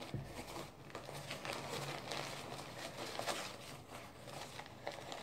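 Close-up rustling and crinkling of a paper tissue, with irregular light clicks from handling, as smudged wet nail polish is wiped off a plastic phone case.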